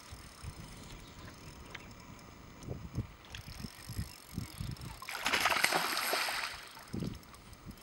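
A hooked tarpon thrashing and splashing at the water's surface for about a second and a half, a little over five seconds in. Before it, scattered low thumps.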